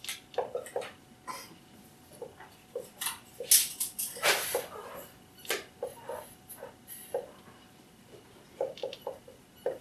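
Dry-erase marker writing on a whiteboard: irregular short squeaks and taps, with a few longer, louder strokes around the middle.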